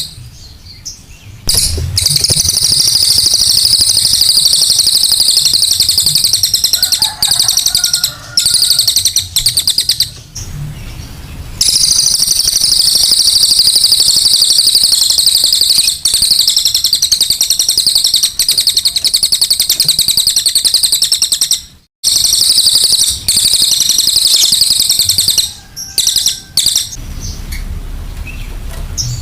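Cililin songbird giving its harsh, rough 'kasaran' call: a fast, high-pitched chattering song poured out in long unbroken runs with a few short pauses, as used for a lure (pancingan) recording to set other birds calling.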